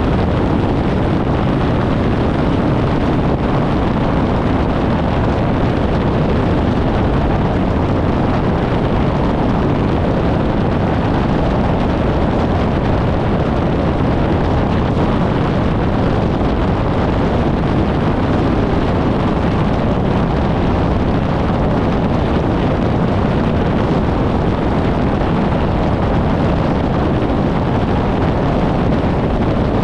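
Steady wind rush on the microphone and road rumble from a 1994 VW Gol with a 1.6 L CHT engine driving at highway speed, heard from a camera mounted outside the car.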